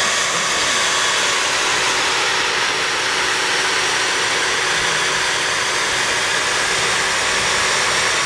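Vacuum motor running steadily, a loud even rush of air with a faint steady hum, as used to suck a honeybee swarm into a bucket.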